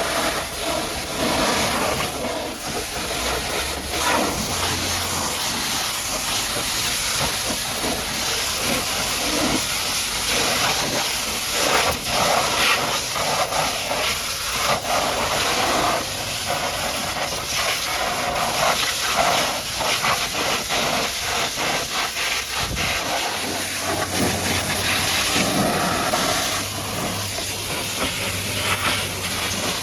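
High-pressure washer jet blasting mud off a truck: a steady loud hiss of spray with constant spattering as the water strikes the surfaces.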